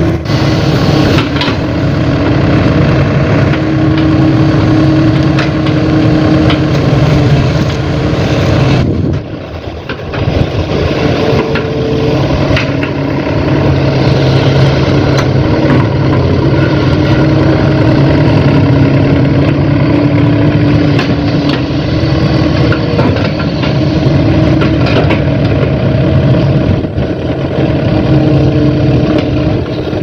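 Diesel engine of a Sumitomo tracked hydraulic excavator running loud and steady as the arm works, its note shifting up and down a little, with a short dip in level about nine seconds in.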